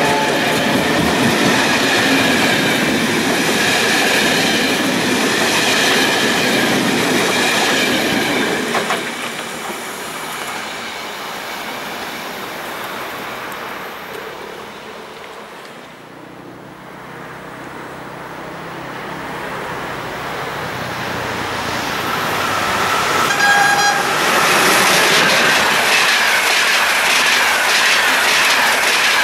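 Passenger coaches of a train rolling past on the rails, loud for about nine seconds and then fading away. A second train approaches, gives a short horn blast about 23 seconds in, and its coaches pass loudly near the end.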